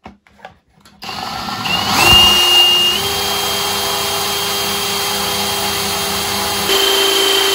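Cordless drill driving a self-drilling screw into a stripped metal screw head to drill it out. The motor starts about a second in with a steady whine that is loudest just after it starts and steps up slightly in pitch twice.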